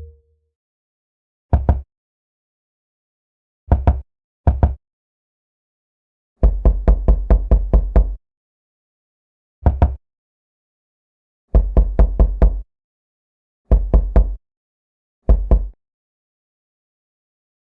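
Knocking on a door: hard knocks in separate groups, from a single double-knock to a quick run of about eight, with pauses of one to two seconds between groups.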